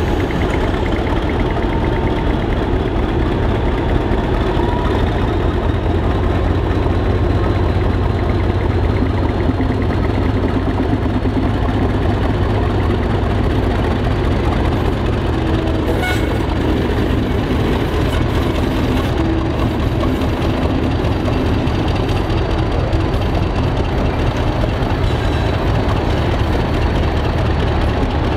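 Class 50 diesel locomotive's English Electric V16 engine running loud and steady as it draws a train of coaches away at low speed, with a faint high whine rising slowly.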